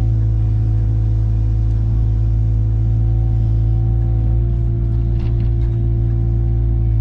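Diesel engine of heavy earthmoving equipment running steadily at constant speed, with a deep, even rumble and a steady hum. There are a few faint clicks about five seconds in.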